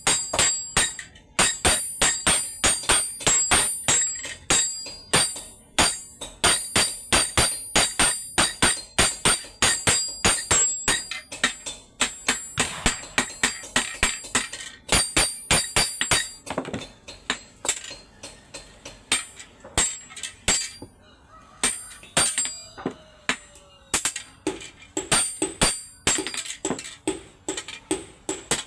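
Hammer blows on iron at an anvil, each ringing sharply, about three or four a second. The blows thin out past the middle and then come fast again near the end.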